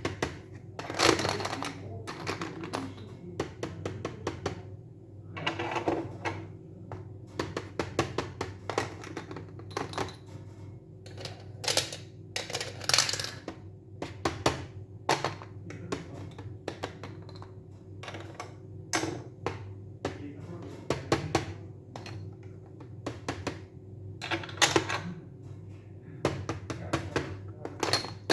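Irregular quick clicks and taps, with a few brief scraping or rustling sounds, over a faint steady hum.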